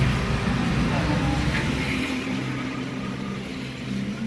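Car engine running, heard from inside the cabin: a low rumble that is strongest for the first couple of seconds and then eases off.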